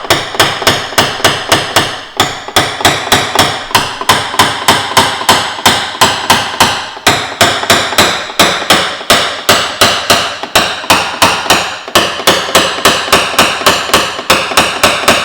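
Rapid, even metallic tapping of a hammer on a dent-repair knockdown tool against a car's steel body panel, about three taps a second, with only brief pauses: the high spots around pushed-out BB-gun dents being tapped down during paintless dent repair.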